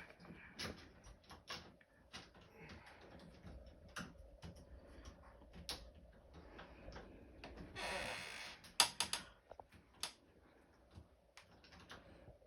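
Scattered small clicks and taps of door lock parts being handled and worked at by hand. About eight seconds in there is a brief rattle, followed at once by a sharp click, the loudest sound here.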